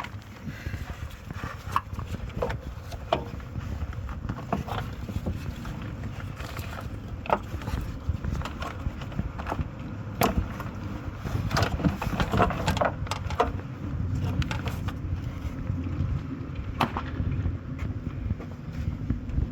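Irregular clicks and knocks of hand tools and parts being handled during work on a van's engine, over a steady low rumble.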